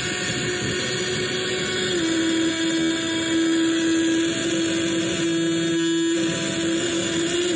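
Homemade experimental noise synthesizer (the 'Void Generator') putting out a dense, harsh noise drone over a steady humming tone, which steps up a little in pitch about two seconds in.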